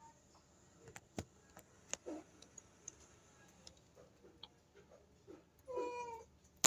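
A cat gives one short meow near the end, among scattered light clicks and taps.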